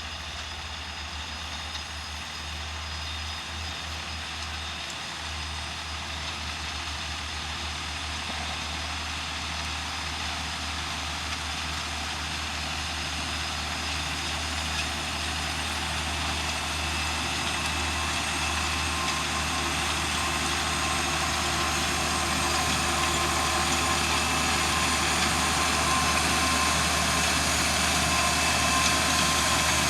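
John Deere tractor engine running steadily, growing louder as it draws nearer.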